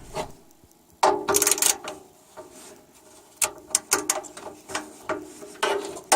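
Hand tool and metal parts clicking and scraping as a new blower capacitor is tightened into its mount. There is a scraping rattle about a second in, then a run of sharp, uneven clicks.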